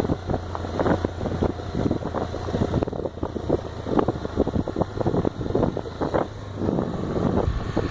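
Honda XRE trail motorcycle engine running while riding, with wind buffeting the microphone in irregular gusts.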